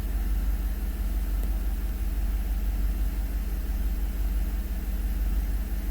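The 5.3-litre V8 of a 2012 GMC Yukon idling steadily under load, with an even low rumble. There is no audible misfire; the intermittent random misfire it is known for is not occurring.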